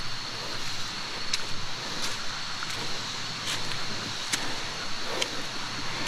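Steady rush of running stream water, with a thin, high, steady tone over it and a few short sharp clicks.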